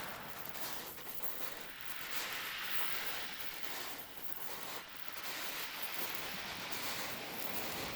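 Ocean surf washing onto a shore: a steady hiss of breaking and receding water that swells and eases.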